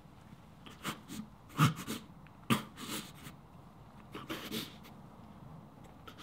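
An injured woman's ragged, uneven breathing: a string of short gasps and sniffs. The loudest come about one and a half and two and a half seconds in.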